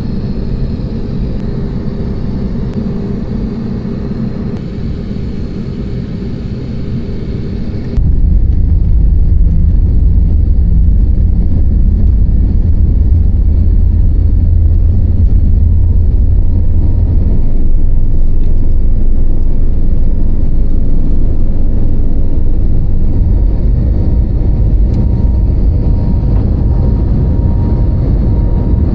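Airliner engines heard from inside the passenger cabin: a steady hum with held engine tones, then, from about eight seconds in, a sudden much louder low rumble that keeps on steadily.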